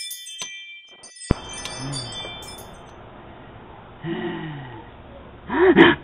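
Bright, chime-like ringing tones for about the first second, cut off by a click. A steady microphone hiss follows, with a few brief voice-like sounds, the loudest near the end.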